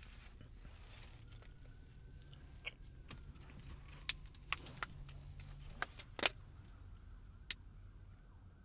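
Small handling and eating noises in a parked car's cabin: about half a dozen scattered sharp clicks and crinkles over a low steady hum.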